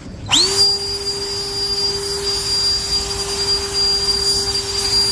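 A motor-driven machine spins up with a quick rising whine about a third of a second in, then runs at a steady high-pitched whine over a hiss.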